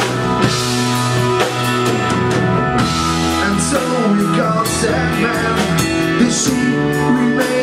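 Rock band playing live: drums, bass, electric guitar and keyboards, with a singer.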